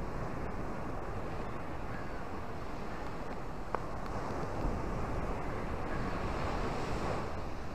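Ocean surf breaking and washing up over sand and rocks as a steady rush. A wave swells up about halfway through and recedes near the end.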